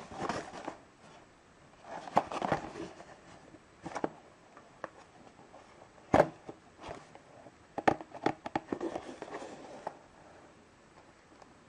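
A small paper toy box and a printed card handled in the hands: bursts of rustling, with a few sharp clicks and taps as the box is turned over.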